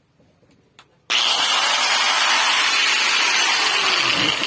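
Bosch angle grinder switched on about a second in and running free with a loud, steady high whir, then switched off near the end, its pitch falling as it begins to spin down.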